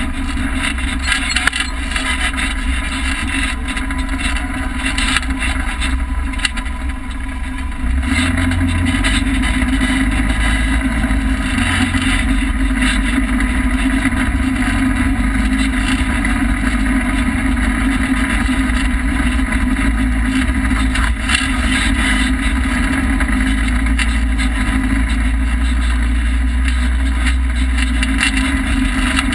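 Polaris RZR side-by-side's engine running steadily while driving on a dirt trail, heard from inside the open cab. It grows louder about eight seconds in.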